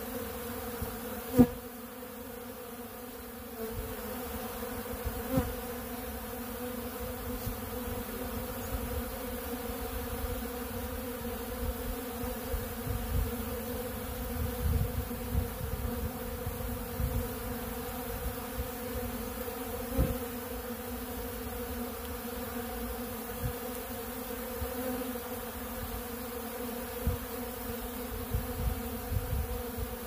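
Honeybees buzzing in numbers as they fly around and feed at a pollen feeder: a steady, even hum. A few sharp ticks stand out, the loudest about a second and a half in.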